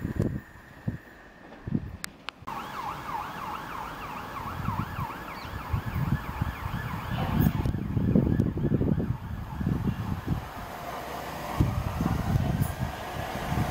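A distant emergency-vehicle siren yelping in quick rising-and-falling sweeps for a few seconds, then a gusty low rumble. Near the end an approaching Southeastern electric train adds a rising whine.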